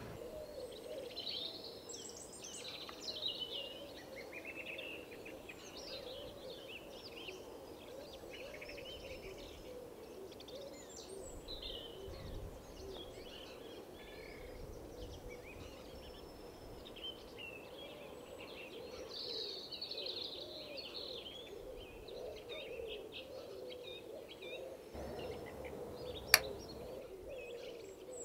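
Small wild birds singing and chirping, many overlapping high calls, over a faint steady low drone. A single sharp click comes near the end.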